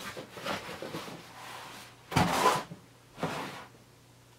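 Rummaging among items in a plastic storage tote and lifting out a cardboard box, with soft rustles and knocks. A louder knock comes about two seconds in and a softer one about a second later.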